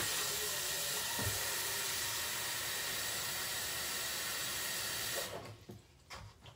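Kitchen tap running water into a plastic container, a steady hiss that is shut off about five seconds in, followed by a few faint handling knocks.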